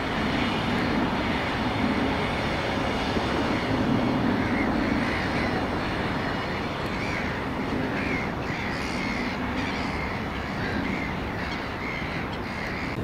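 2TE116U two-section diesel locomotive running light past and away, its diesel engines giving a steady low rumble that fades a little near the end. Birds call repeatedly over it.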